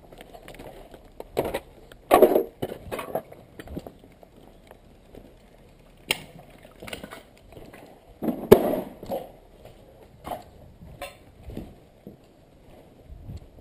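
Footsteps crunching and clattering over rubble and broken corrugated roofing sheets, irregular and uneven, with heavier steps about two seconds in and again about eight and a half seconds in.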